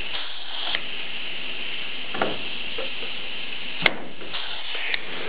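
A toy power drill tapping against a car's window trim: a few sharp clicks, the loudest near the end, over a steady hiss.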